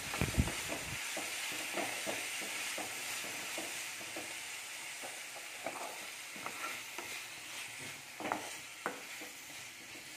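Ivy gourd slices frying in coconut oil in a metal kadai, sizzling steadily while a wooden spatula stirs them, with irregular light scrapes and knocks of the spatula against the pan.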